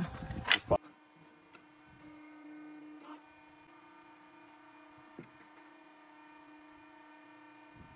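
A few sharp knocks in the first second, then a faint, steady machine hum at one pitch, with a few light clicks over it.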